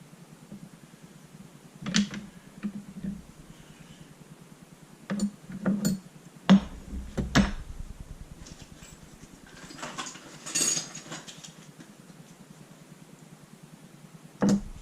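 Clinks and knocks of small metal parts and hand tools being handled while taking apart a paintball marker: several separate sharp knocks, with a short rattle about ten seconds in.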